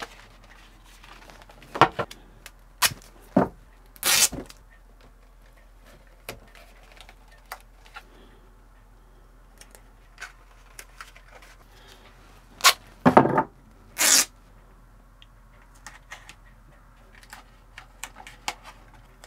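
Hands working a cardboard box wrapped in tape: scattered taps, knocks and crinkles of cardboard, with two short sharp rasps about four and fourteen seconds in, like tape being pulled off the roll.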